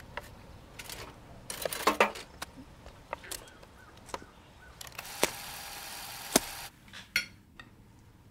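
Small clanks and clicks of a metal cantilever tackle box being opened, then a spoon and cutlery clinking on a china dinner plate. A steady hiss runs for a little under two seconds in the second half, with sharp clicks through it and another just after it ends.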